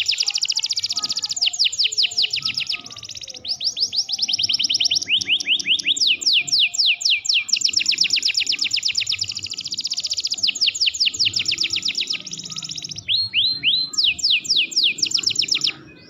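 Domestic canary singing a long, loud song of rolling trills, each a run of rapid high falling notes, switching from one trill to the next with barely a pause. The song breaks off suddenly near the end.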